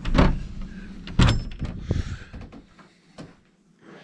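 Two sharp knocks about a second apart, followed by a few lighter clicks and taps that die away to quiet near the end.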